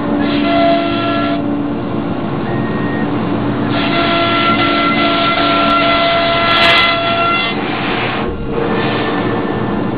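1325 wood CNC router running: a steady machine whine with a rougher cutting noise that swells and drops back several times as the tool works.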